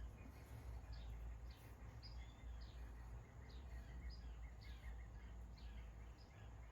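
Faint bird chirping: short, high, falling chirps repeated about twice a second, over a steady low hum.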